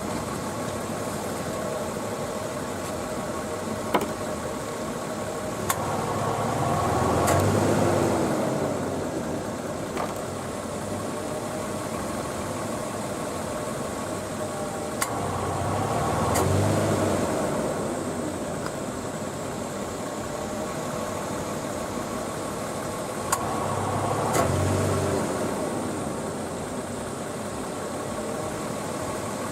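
Nissan Elgrand E51 idling with its air conditioning on, the compressor clutch clicking in and the compressor running for about three seconds before cutting out, three times about nine seconds apart: the compressor switching on and off too often, a fault a Nissan dealer's computer diagnosis could not explain.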